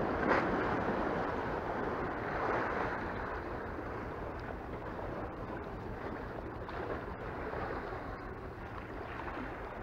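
Sea waves washing against the concrete tetrapods of a breakwater: a steady rush that swells twice in the first few seconds.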